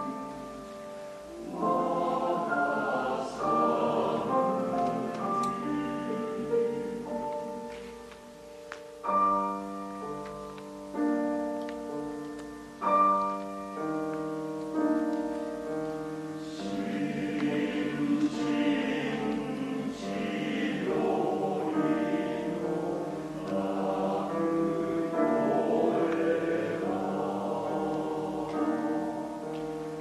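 Men's choir singing in harmony with grand piano accompaniment, a choral setting of a Japanese children's song; a run of held chords, each struck sharply and then sustained, comes about a third of the way in.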